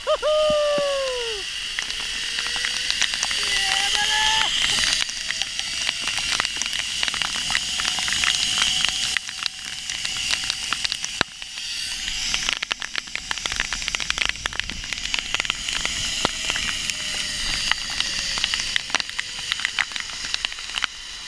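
Zip-line trolley pulleys running along the steel cable: a faint whine that slowly rises in pitch as the rider gathers speed, then falls toward the end. It runs under a loud, steady rush of wind and rain on the camera, with many sharp crackling clicks of raindrops hitting it.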